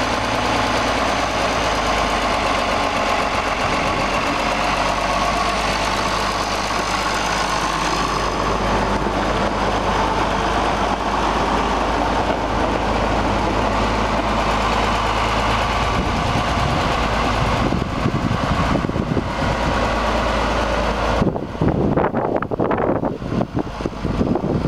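A 1974 International 1066 tractor engine runs steadily. A little over 21 seconds in, the engine sound stops abruptly, leaving gusty wind noise on the microphone.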